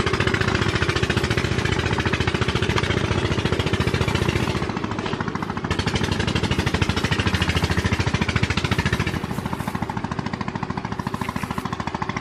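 A small engine running steadily, with a fast, even knocking beat.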